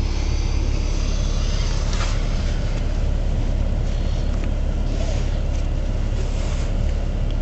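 Car engine idling, heard from inside the cabin as a steady low rumble, with a few faint clicks and rustles from a child fumbling with a seat-belt buckle.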